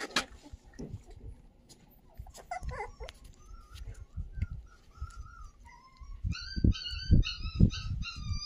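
A puppy whimpering: short high whines, scattered at first, then several a second over the last few seconds. Low thuds sound under the later whines.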